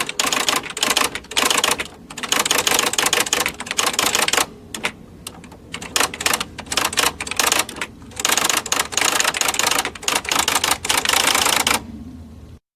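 Electric typewriter typing in fast runs of key strikes, each run a second or more long with short pauses between them, over the machine's steady motor hum.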